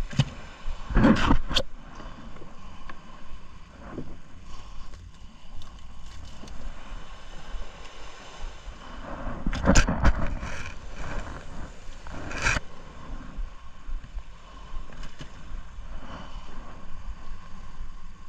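Knocks, bumps and scrapes against a small wooden fishing boat as fish are handled out of the net, over a steady low rumble. The loudest knocks come about a second in, again around ten seconds, and once more at about twelve and a half seconds.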